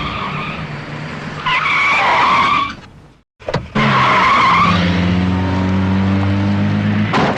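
Car tyres squealing in a few screeches over a running engine, cut off by a brief silence about three seconds in; then one more squeal and the engine running at a steady pitch.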